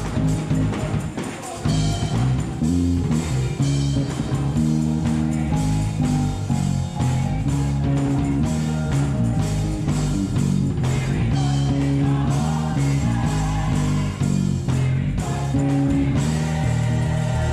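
Gospel song with drums and singing, and a Wing electric bass played through an amp carrying a busy, rhythmic low line.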